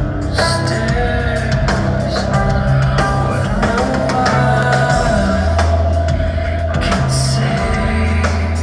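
Band playing rock music: a steady bass line and drum beats under held sung or guitar notes.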